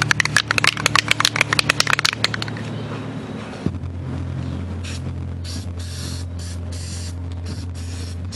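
Aerosol spray-paint can being shaken, its mixing ball rattling fast for about two seconds, then a series of short spray bursts from about five seconds in.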